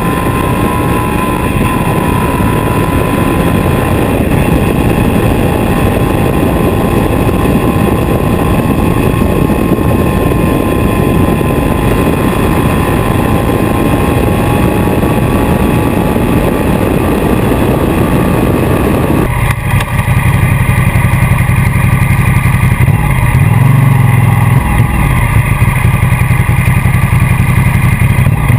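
Ducati motorcycle engine running at speed with heavy wind rush over a bike-mounted camera. About two-thirds of the way in the rushing noise drops off abruptly, leaving a deeper, louder engine note.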